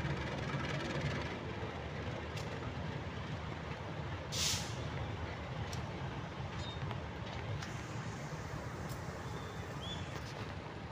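Diesel locomotive engine running with a steady low drone as the locomotive rolls slowly along the tracks. About four seconds in there is one short, sharp hiss of air, typical of the air brakes.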